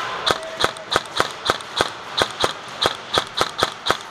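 Airsoft rifle firing rapid semi-automatic shots, a run of sharp, evenly spaced snaps at about four a second.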